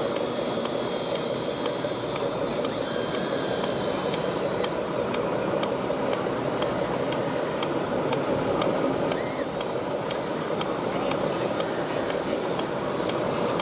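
Steady background noise of a busy exhibition hall, with a faint light ticking about twice a second.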